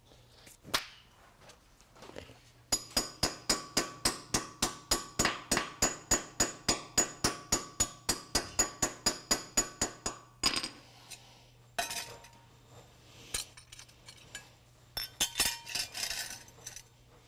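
Hammer driving a steel wedge anchor down into a drilled hole in concrete: a quick, even run of ringing metal-on-metal blows, about four a second for around seven seconds. Lighter metal clinks and clanks follow near the end as a steel bracket is set down over the anchor.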